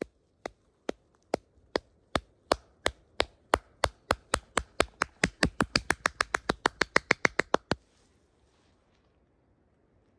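Hands clapping in an accelerating run: slow claps that speed up steadily into a rapid patter of about ten a second, then stop short of the end.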